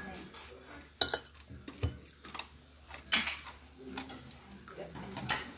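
Metal spoon clinking and scraping against ceramic side-dish bowls on a table: a few separate light clinks, the loudest about three seconds in.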